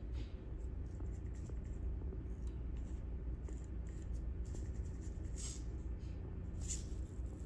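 Dry-erase marker held by a hobby-servo robot arm scraping on a whiteboard in a few short strokes as the arm writes a digit, over a steady low hum.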